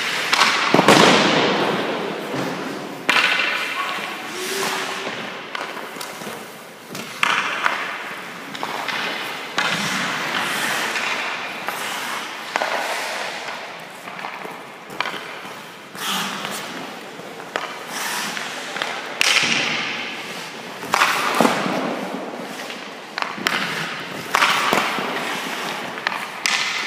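Hockey pucks shot at a goaltender in an ice arena: sharp cracks of stick on puck and thuds of puck into pads and boards, every two or three seconds, each ringing out in the rink.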